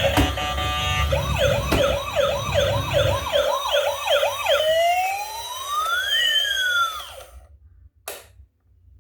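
Electronic emergency siren in a fast yelp of about nine quick sweeps, then a slower wail, cutting off about seven seconds in; background music fades out under it at the start, and there is a single click near the end.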